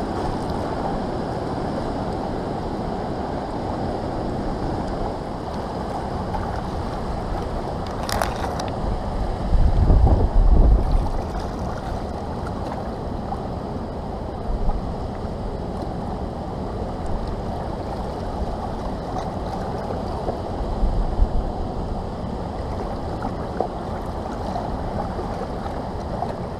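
A fast, high river current rushes steadily. About ten seconds in, a gust of wind buffets the microphone in a low rumble, and a single sharp click comes shortly before it.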